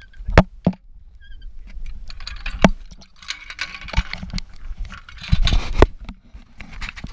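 Metal zipline trolley, carabiners and lanyard hardware clinking and knocking as they are handled, several sharp knocks in a row, with rubbing and brushing noise close to the microphone.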